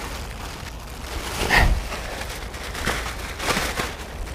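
Plastic bag rustling and crinkling in three short bursts as hands handle the bag holding the caught fish.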